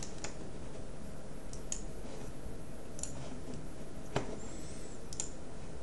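Computer mouse clicking about five times at uneven gaps, single short clicks over faint room noise.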